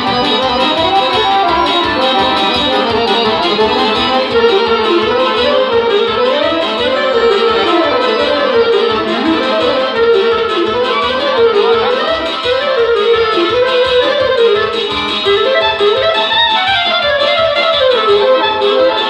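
Romanian folk dance music played live on a Weltmeister piano accordion and a clarinet, with fast winding melody runs over a steady, evenly pulsing keyboard beat.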